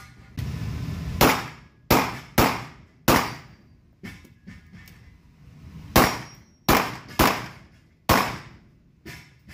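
Glock 19 9mm pistol firing about eight shots, several in quick pairs about half a second apart, each a sharp crack with a short echoing tail from the indoor range. A few fainter metallic hits fall between the shots, typical of bullets striking steel plate targets.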